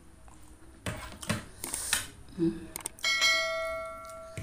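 Noodles being slurped, then about three seconds in a bell-like chime strikes and rings out, fading over a second and a half: the notification-bell sound effect of a subscribe-button overlay.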